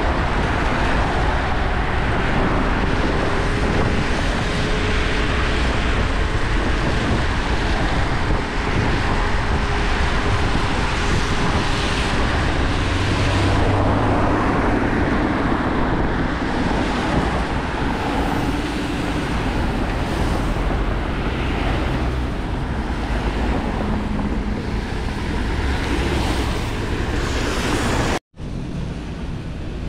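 Wind rushing over the microphone and tyres hissing on wet asphalt from an electric scooter ridden in the rain, with road traffic around it. The sound drops out for an instant near the end.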